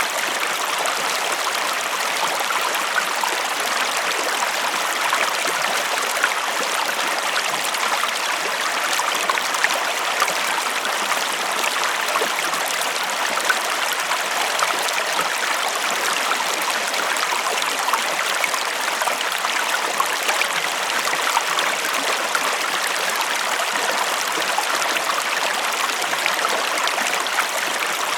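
Small river stream flowing steadily over stones, a continuous rushing with small splashes and gurgles.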